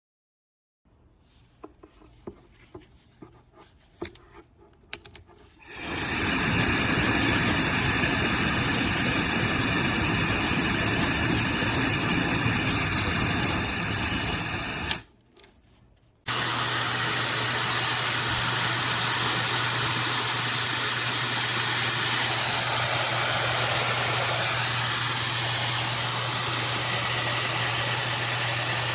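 SnugLuv high-speed hair dryer: a few light handling clicks, then it is switched on about six seconds in and blows with a steady rush of air. It cuts off around fifteen seconds and comes back on a second later, hissier and with a low hum.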